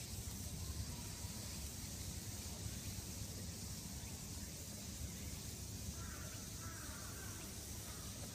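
Faint outdoor ambience: a steady low hiss and rumble, with a few faint high chirps about six seconds in.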